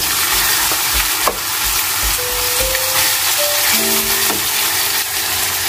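Sliced onions sizzling as they fry in a stainless steel pan, with a wooden spatula stirring and knocking against the pan. Soft background music plays over it.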